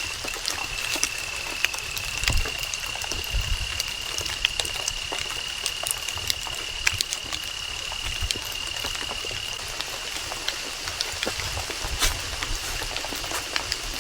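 Rain falling in woodland, with many distinct drops pattering and dripping on a floor of fallen leaves. A thin steady high-pitched tone runs under it and fades out about two-thirds of the way through.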